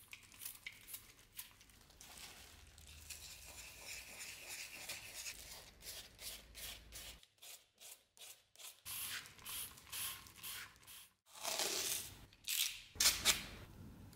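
Sponge and then sandpaper rubbing back and forth over the primed steel cup guard of a rapier hilt, to key the surface before painting. It comes as runs of short scratchy strokes, with a denser, louder stretch of rubbing and two sharper strokes near the end.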